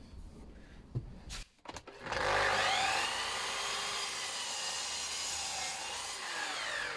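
Mitre saw switched on about two seconds in, its motor spinning up and then cutting down through two Sapele pieces clamped together by hand. The motor note dips briefly under load near the end, then starts to wind down.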